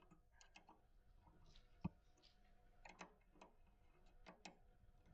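Faint, irregular clicks of a hand tool against the robot's drive coupling as it is loosened, with one louder knock a little under two seconds in.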